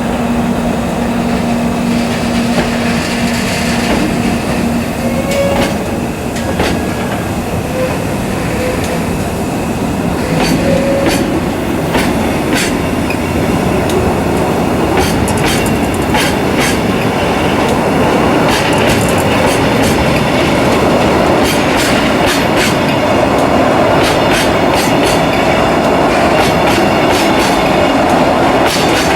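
Freight train of Taki tank wagons rolling past, the wheels clacking over the rail joints; the clacks come faster and the sound grows louder toward the end, as the train gathers speed. A steady hum is heard for the first few seconds.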